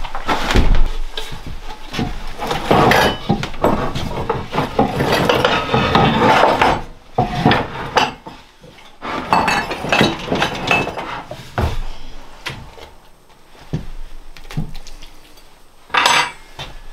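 Hard objects in a kitchen clattering and knocking as they are handled and set down, busy at first, then thinning to separate knocks, with one sharp knock near the end.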